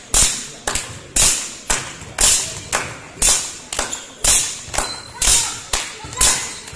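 Spectators beating out a steady supporting rhythm: sharp strikes about twice a second, alternating louder and softer, each ringing on in the sports hall's echo.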